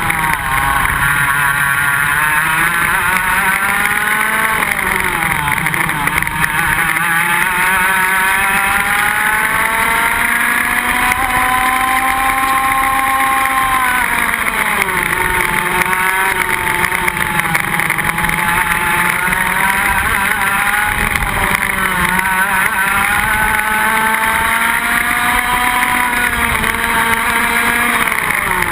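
Iame X30 125cc two-stroke kart engines at racing speed, their pitch repeatedly climbing under acceleration and falling off for corners, with one long climb that drops sharply about halfway through. Heard from a camera on a kart running close behind another.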